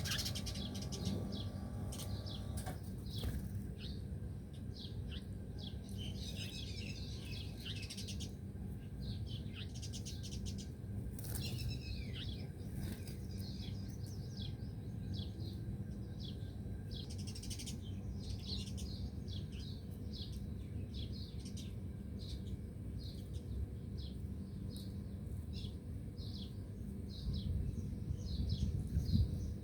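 Small birds chirping: many short, high chirps following one another over a steady low rumble.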